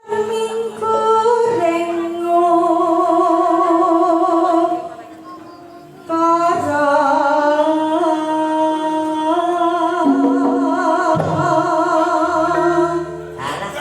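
A solo voice singing long, held notes with a wavering vibrato in two phrases, with a short pause between them about five seconds in, in the slow melismatic manner of a Javanese tembang such as dhandhanggula or sinom.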